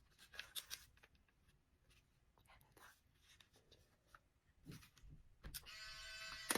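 Faint clicks and handling of a Fujifilm Instax Mini 12 instant camera, then about five and a half seconds in a sharp click and the camera's film-ejection motor starts whirring steadily, running with no film loaded.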